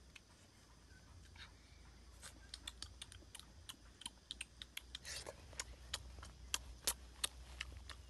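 Small fire with eggs roasting in its embers, crackling in irregular sharp clicks and pops that are sparse at first and come thick and fast from about five seconds in, over a low steady rumble.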